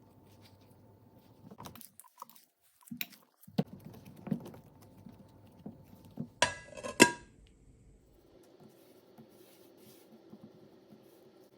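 Kitchen utensils and cookware knocking, with scattered light taps and, a little past the middle, two loud metallic clangs that ring briefly.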